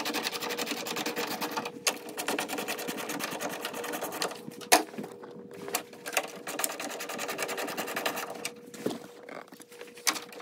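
Hand ratchet with a 10 mm socket clicking rapidly in long runs, with short pauses and one sharp knock about five seconds in, as the grille's 10 mm bolts are backed out. A faint steady hum runs underneath.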